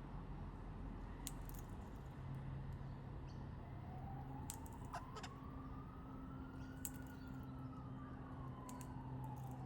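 A female Australian king parrot cracking sunflower seeds in its beak: a few sharp, scattered clicks over a low steady hum, with a faint tone rising and then falling in the background during the second half.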